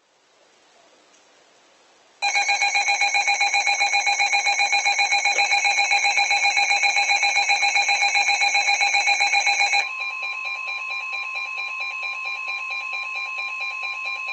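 Emergency alert tones from a weather radio: after a couple of seconds of faint hiss, a loud, rapidly pulsing electronic alert of several stacked tones runs for about seven and a half seconds. It then gives way to a steady single tone near 1 kHz, the NOAA Weather Radio warning alarm tone that comes before a warning message.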